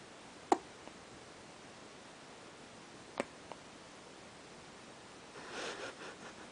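Newborn baby hiccupping: a sharp hiccup about half a second in and another about three seconds in, then a brief soft rustling near the end.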